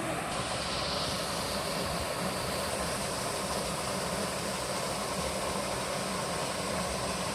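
Water rushing steadily, an even unbroken noise.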